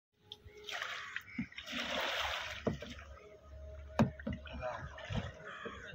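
Kayak paddle blades dipping and splashing in calm water, two strokes in the first half, with a single sharp knock about four seconds in.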